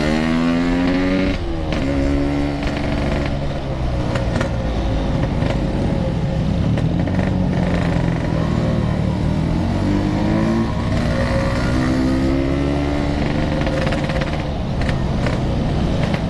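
Yamaha RX-King 135cc two-stroke motorcycle with a Packing Power exhaust accelerating on the road, its pitch climbing, dropping at a gear change about a second and a half in, then climbing again, with another rise near the end. Steady wind rumble on the riding microphone runs underneath.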